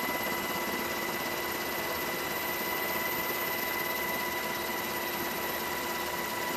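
Steady helicopter cabin noise: an even rushing engine and rotor noise with a constant whine at several fixed pitches.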